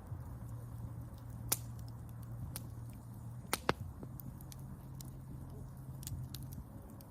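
Wood campfire crackling, with sharp pops scattered through it; the loudest are two pops close together about three and a half seconds in. A low steady rumble runs underneath and drops out briefly.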